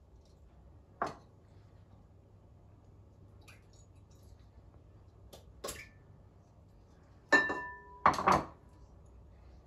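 Small glass bowls knocking and clinking against a glass mixing bowl and the tabletop: one sharp knock about a second in, a few light taps, then two loud clinks that ring on briefly near the end.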